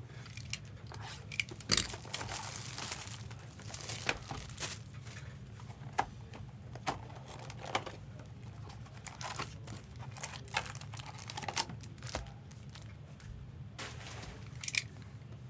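Wrapping crinkling and tearing in short irregular rustles and clicks as trading card boxes and packs are opened by hand, over a steady low hum.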